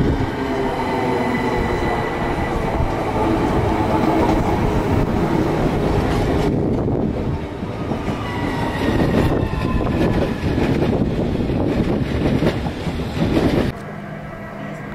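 Electrostar electric multiple unit on the move: a whine of several tones over a rumble. In the second half comes a run of wheel clicks over the rail joints. The train sound cuts off abruptly about a second before the end.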